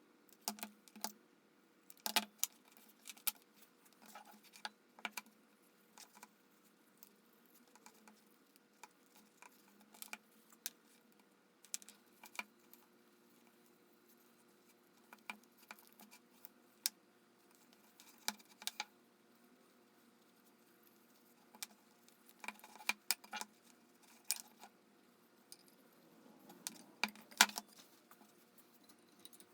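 Scattered light clicks and taps of small hard objects being handled, coming at irregular intervals with quiet gaps between and bunching up near the end.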